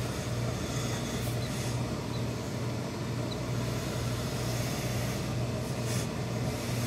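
Steady low hum of steam-pressing equipment, with the soft hiss and rub of a hose-fed industrial steam iron being pressed and slid over a wool suit trouser leg. A couple of faint, brief hisses come through about a second and a half in and near the end.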